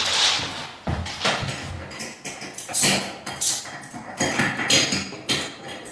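Irregular knocks, clicks and rustling from people moving about.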